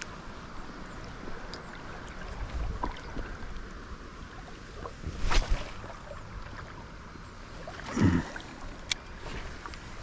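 Shallow river water running steadily around a wader, broken by two sudden splashes, about five and eight seconds in.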